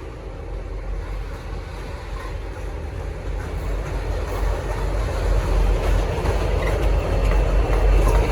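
V/Line N class diesel-electric locomotives running as a triple-header, a steady low diesel rumble that grows gradually louder.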